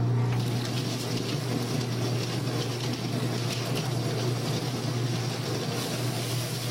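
Poultry plucker machine running. A steady motor hum, joined just after the start by a continuous rushing, spattering noise as the birds tumble against the plucking fingers.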